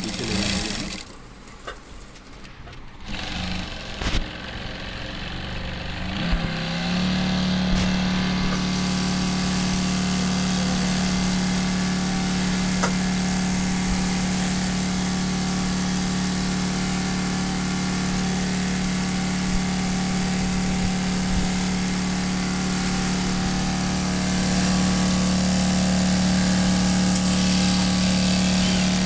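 JACK industrial walking-foot sewing machine stitching a folded leather bag handle. It is quieter and uneven over the first few seconds, then from about seven seconds in runs at a steady speed with a constant hum.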